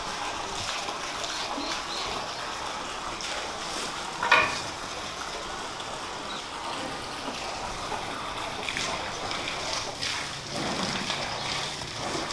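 Water running and splashing steadily, with one short, loud pitched sound about four seconds in.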